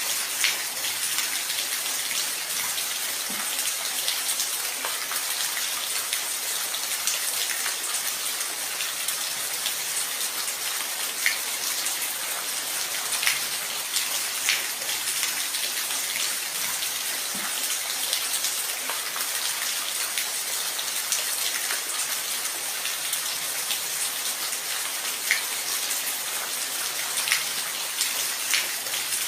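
Steady rain falling, a constant hiss with scattered louder individual drops striking a surface.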